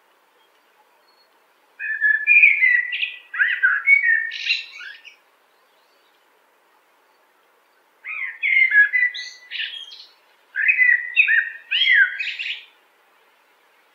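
A songbird singing three fast, warbling song phrases of two to three seconds each, with a pause of a few seconds after the first.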